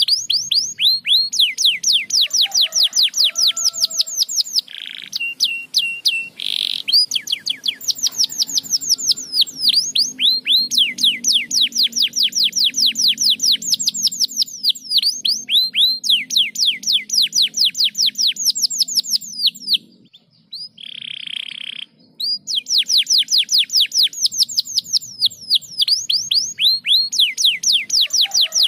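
Domestic canary singing: long, fast trills of rapidly repeated, descending chirps, broken by a short pause about two-thirds of the way through.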